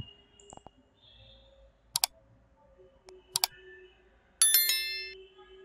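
Sound effects of a like-and-subscribe overlay animation: two sharp double clicks about a second and a half apart, then a bright bell-like notification chime that rings and fades.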